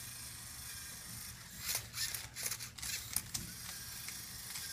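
Plastic Rubik's Cube faces being turned: a run of irregular clicks and rattles over a low steady hum.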